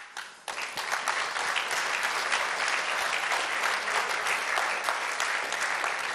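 Audience applause: many people clapping together, starting about half a second in and holding steady.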